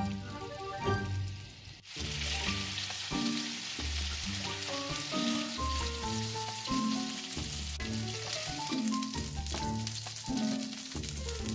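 Chicken breasts sizzling in hot oil in a frying pan, the sizzle starting about two seconds in, over background music with a steady bass line.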